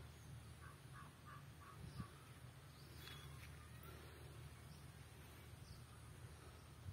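Near silence: faint low outdoor background noise, with a distant bird giving a run of about five short calls about a second in.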